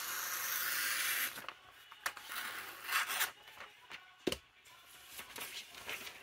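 Paper pages being taken out of a vintage magazine: a long rasp of paper for about the first second, then shorter paper strokes and a sharp click a little after four seconds in.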